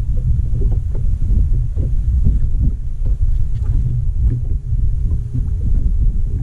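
Wind rumbling on the microphone and choppy water slapping against a fiberglass bass boat's hull, with scattered small knocks and clicks. A faint steady hum joins about three seconds in.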